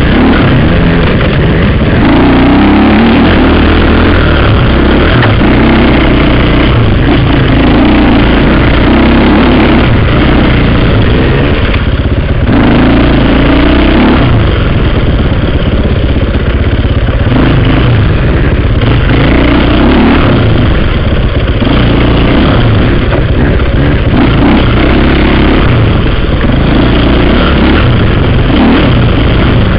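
Dirt bike engine heard close up from a helmet camera, loud, with the throttle opening and closing so the revs rise and fall every couple of seconds as it rides over rough ground.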